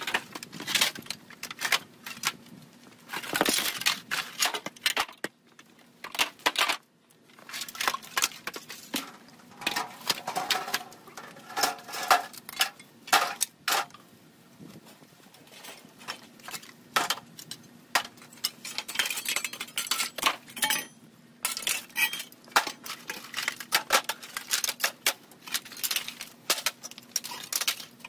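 Broken roofing-sheet fragments and rubble clattering and clinking as they are picked up by hand and thrown into a wheelbarrow, in irregular bursts of sharp knocks with short pauses between.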